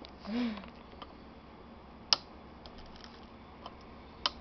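A few sharp clicks and light taps from hands handling small parts on a wooden block: the loudest click comes about two seconds in and another near the end. A short hummed voice sound, rising then falling in pitch, comes just after the start.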